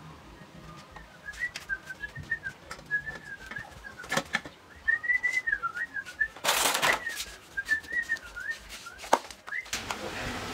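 A person whistling a wandering tune, with a few sharp knocks of a metal pot being handled and a brief burst of hiss a little past the middle. The sound cuts off suddenly shortly before the end.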